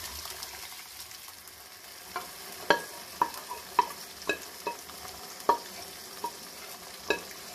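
Cooked whole green moong dal sizzling steadily as it is poured into hot ghee-fried masala in a wok. From about two seconds in, a wooden spoon scraping the last lentils out of the metal pot knocks against it about ten times with sharp, ringing clinks.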